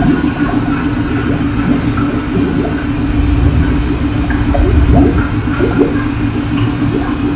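A steady low drone note held throughout over a dense rumbling noise, with a few short rising sweeps: the video's experimental noise soundtrack.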